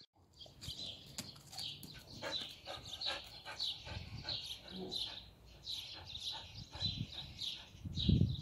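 A dog panting steadily, about two to three quick breaths a second.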